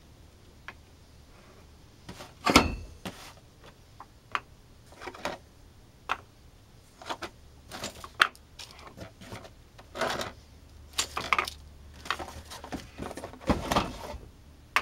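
Cast resin orgonite pucks being picked up and set down on wooden deck tiles, making irregular knocks and clicks as they touch the wood and each other. The loudest thump comes about two and a half seconds in, with another strong one near the end.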